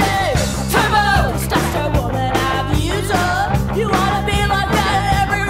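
Punk rock song with electric guitar and drums at a steady driving beat, and a singing voice over the band.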